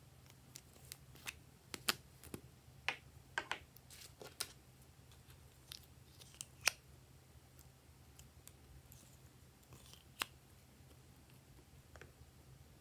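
Small plastic clay containers clicking and snapping as they are handled, their lids pulled off and the clay scooped out. A quick run of sharp clicks for the first seven seconds or so, then two single clicks later.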